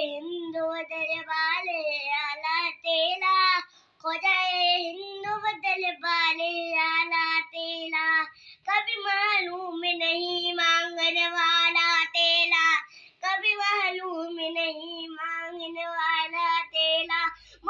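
A young boy singing a devotional song solo, without accompaniment, in a high clear voice, phrase after phrase with brief breaths about every four seconds.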